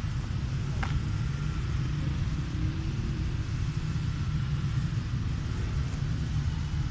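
Steady low outdoor rumble, with a single faint click about a second in.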